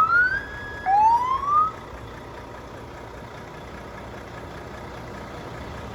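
Electronic police-car siren switching tones: a rising wail holds briefly, then a second short upward sweep cuts off just under two seconds in. After that only a steady low background hum remains.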